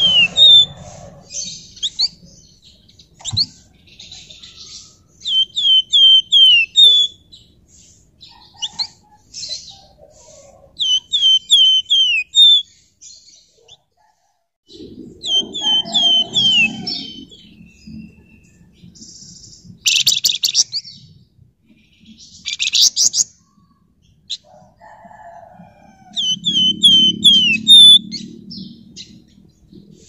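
Caged flamboyan songbird singing: runs of quick, high, down-slurred chirps repeated in bursts, broken by a few short harsh buzzy rattles. A low murmur rises in the background twice.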